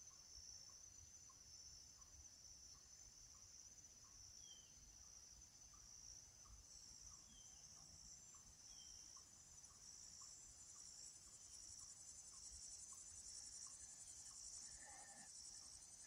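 Quiet summer woodland ambience: a steady high chorus of crickets and other insects, with a faint tick repeating about twice a second and a few short high chirps. Underneath is a faint low rumble of distant human activity.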